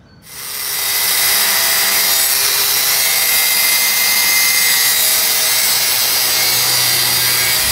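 Angle grinder spinning up about a second in, then cutting steadily through the steel tailgate linkage rod of a dump truck.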